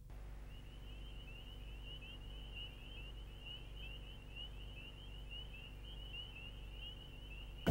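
Faint, high-pitched chirping: short chirps repeating rapidly at an unchanging pitch, over a low steady hum.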